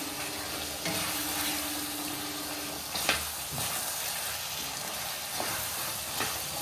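Pumpkin pieces being stirred into a sizzling spice masala in a steel kadai, the spatula scraping through the mix and knocking against the pan a few times, most sharply about three seconds in.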